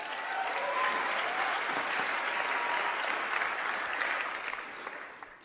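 Large audience applauding, swelling at the start, holding steady, then fading out near the end.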